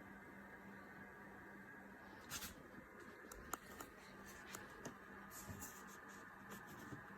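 Near silence: a faint steady hum with scattered light clicks and taps, the sharpest about two and a half and three and a half seconds in.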